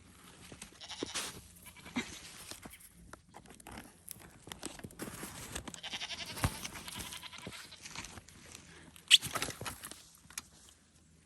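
Goats bleating, with sharp knocks and clatter around them, the loudest knock about nine seconds in.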